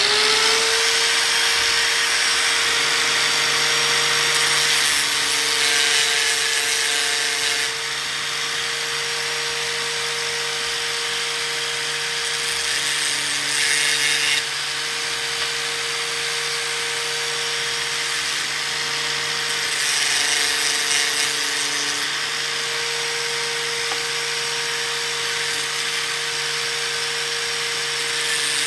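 Angle grinder spinning up at the start, then running at a steady pitch while its disc grinds the cut edges of metal reinforcement strips smooth. The grinding hiss swells and eases every few seconds as the piece is pressed to the disc.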